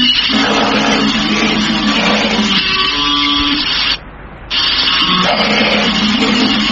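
Loud, distorted grindcore-style noise music driven by electric guitar, a dense wall of sound. It drops out for about half a second around four seconds in, then comes straight back.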